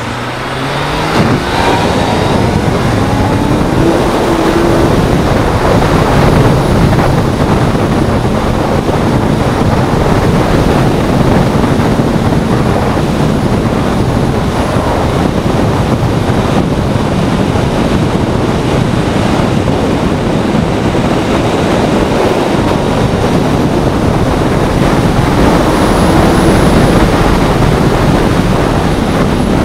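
Honda CBR600F3 sport bike's inline-four engine running at speed, its note rising under acceleration about a second in and again near the end, under a dense rush of wind and road noise.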